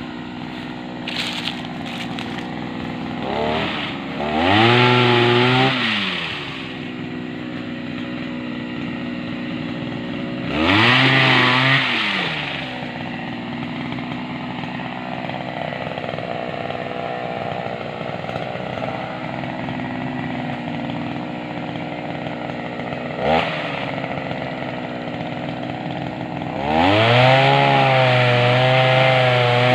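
Small petrol engine of a motorized palm-frond pruning tool idling, then revved up to full throttle three times. Each time the pitch rises quickly, holds for one to three seconds and drops back; the last run-up, about 27 seconds in, is the longest.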